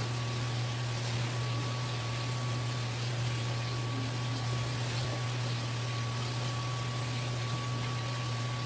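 Steady mechanical hum with an even hiss and a faint thin whine, unchanging throughout, like a fan or air-conditioning unit running.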